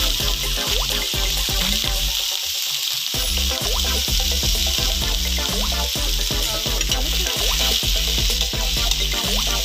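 Chopped vegetables sizzling in hot oil in a wok as they are stir-fried, a steady hiss, under background music.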